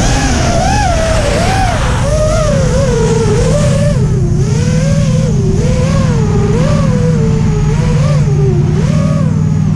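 FPV racing quadcopter's brushless motors (Cobra 2205 2300KV) whining, their pitch swooping up and down every second or so as the throttle is worked, over a steady low hum of stock car engines.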